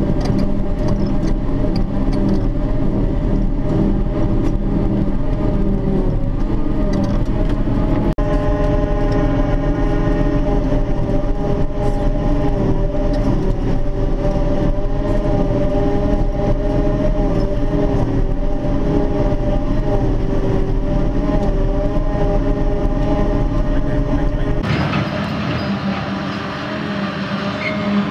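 Claas Jaguar 890 self-propelled forage harvester running steadily as it chops grass and blows it into a trailer: a loud drone with several steady whining tones over a deep rumble. About 25 seconds in, the sound changes suddenly to the harvester and a tractor heard from outside, with a rushing hiss.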